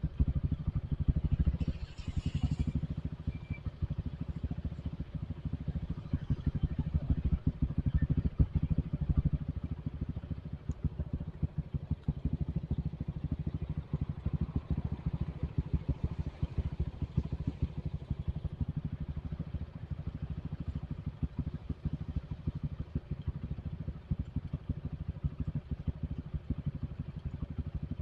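Motorcycle on the move: wind buffeting the microphone as a dense, steady low rumble, with the engine running underneath.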